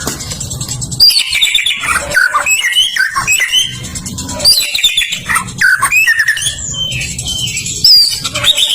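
White-rumped shama (murai batu) singing a continuous, varied song of sliding whistles and chirps.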